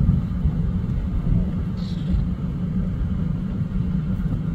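Steady low rumble of a vehicle driving along a road, heard from inside it.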